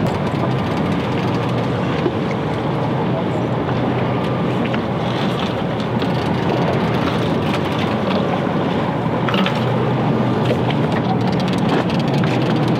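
Fishing boat's engine running with a steady low drone, under wind and sea noise.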